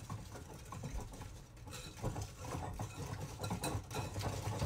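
Faint, irregular clicking and scraping of a whisk in a mixing bowl as eggs are whisked into warm melted-chocolate batter.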